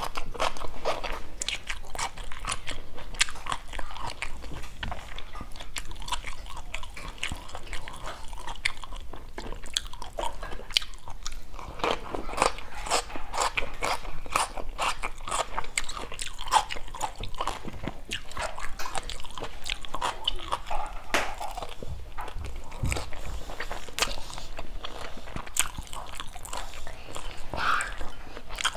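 Close-miked chewing and biting of stir-fried green beans and rice: a steady run of crisp crunches and wet mouth clicks.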